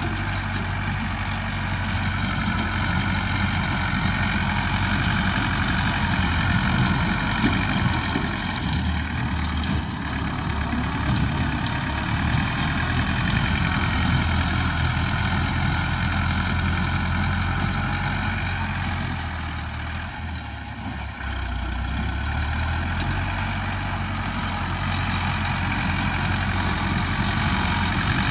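Farm tractor engine running steadily as it pulls a rotary mower through the grass, with a brief drop in level about twenty seconds in.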